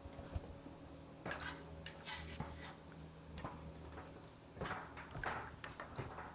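Faint scattered knocks and scuffs of someone climbing an aluminium ladder while handling a foam board panel, over a faint steady low hum.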